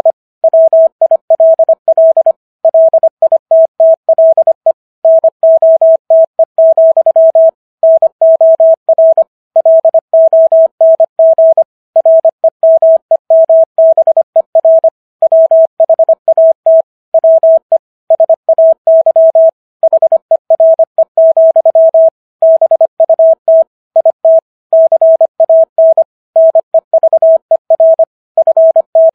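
Morse code sent at 25 words per minute: a single steady beep tone keyed in quick dots and dashes, with short pauses between words. It is spelling out the text of the Gettysburg Address for copy practice.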